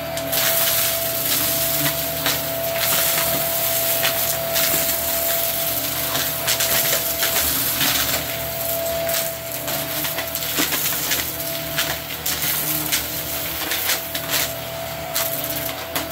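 Hart stick vacuum running with a steady motor whine as its floor head sucks up dry, crumbly debris from a rug, with a dense crackling crunch of bits rattling up into it throughout.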